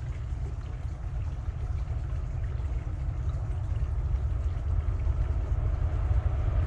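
Approaching Norfolk Southern freight train's diesel locomotives: a low rumble that grows steadily louder.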